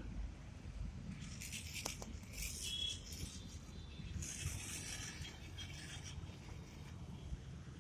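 Scraping, rustling noise in two stretches, about a second in and again about four seconds in, over a steady low rumble.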